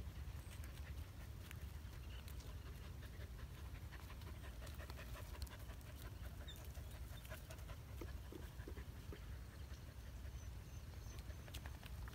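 Dog panting, with a low steady rumble underneath and scattered small clicks.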